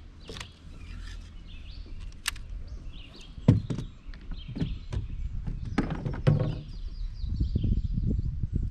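Half a dozen sharp hollow knocks and thunks, the loudest about three and a half seconds in. Under them runs a low rumble that grows louder near the end, with faint high chirps in the background.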